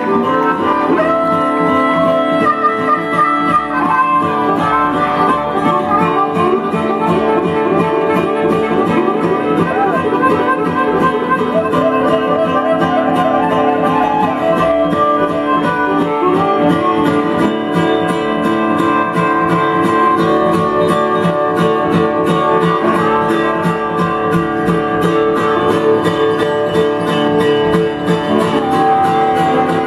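Bluegrass string band playing an instrumental passage with guitar and other plucked strings, with no singing.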